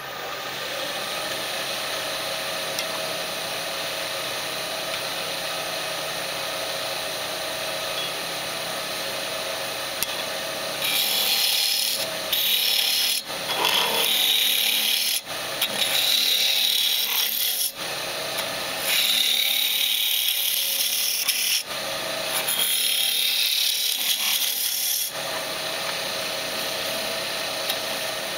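Wood lathe running with a steady motor hum. From about eleven seconds in, a bowl gouge with an Ellsworth grind cuts into the end grain of the spinning blank, hollowing it. The cuts come as several passes of a few seconds each, with short breaks between them.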